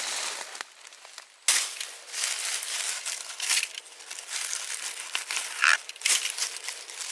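Dry fallen leaves crinkling and rustling under hands working among them to cut mushrooms with a knife. A sudden crackle comes about a second and a half in, and several sharper crackles follow.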